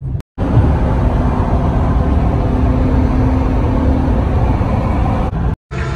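Road noise inside a car travelling at freeway speed: a steady low rumble of tyres and engine with a faint hum. It drops out briefly twice, just after the start and near the end.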